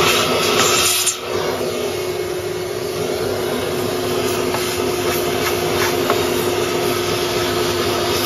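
Vacuum cleaner running steadily with a constant motor hum, sucking dust from inside an open boombox chassis while a bristle brush scrubs over the circuit boards and cassette mechanism. The sound dips briefly about a second in.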